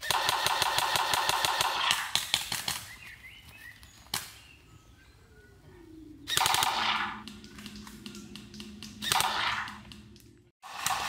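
Airsoft M4-style rifle firing through a speaker-based sound device that plays a recorded Colt M4 gunshot effect with each shot. It fires a long full-auto burst of about two seconds, then a couple of short bursts and a single shot.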